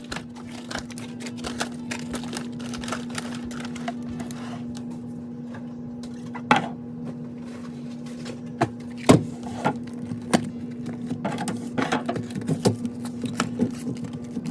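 Irregular clacks and knocks of plastic containers and groceries being handled and set down inside a refrigerator, with the sharpest knocks about six and nine seconds in. A steady low hum runs under them.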